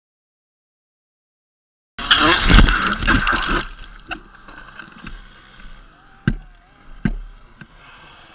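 About two seconds of dead silence, then a loud rush of rough noise and clatter lasting about a second and a half, dying down to a faint outdoor background broken by a few sharp knocks.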